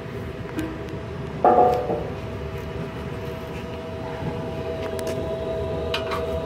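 Furnace exhaust blower running with a steady hum. A single ringing sheet-metal clank comes about one and a half seconds in.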